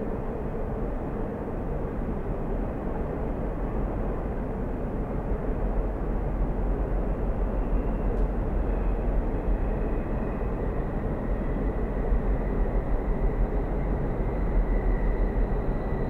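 Train running: a steady low rumble and rush with no clear beat, and a faint thin tone rising slightly into it in the second half.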